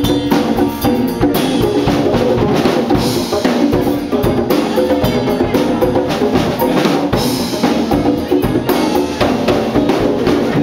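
School jazz band playing a funk groove, led by a drum kit keeping a steady beat, with other instruments sounding under it.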